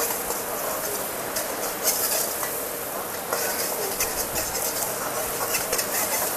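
Egg frying with garlic in hot oil in a non-stick wok, sizzling steadily while it is stirred, with many quick scrapes and taps of the utensil against the pan.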